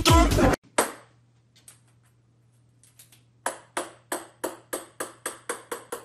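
Music cuts off about half a second in. After a near-quiet stretch with a couple of light taps, a ping-pong ball bounces on a hard wooden floor, about three bounces a second, the bounces coming quicker and fainter.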